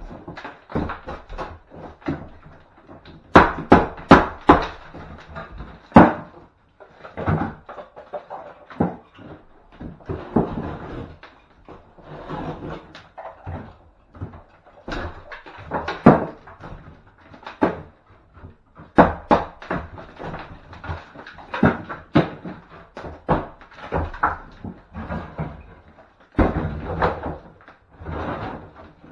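Irregular knocks, bangs and scrapes of hand strip-out work, timber and wall linings being prised and pulled away from around a window frame, with the loudest cluster of bangs a few seconds in.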